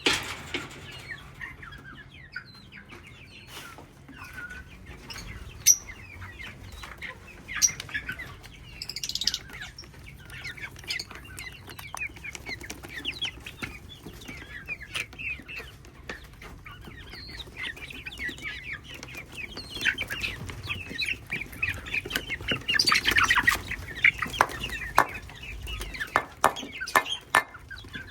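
A breeding colony of parrots chattering and calling with many short, overlapping chirps, plus scattered wing flaps and clicks. The calling grows louder and busier near the end.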